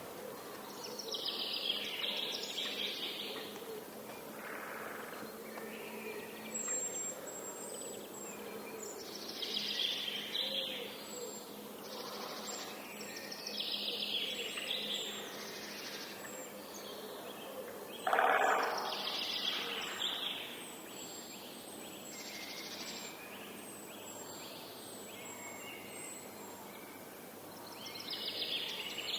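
Outdoor nature ambience of birds singing: song phrases of a second or two come every few seconds, with thin high chirps repeating through most of it, over a steady background hiss.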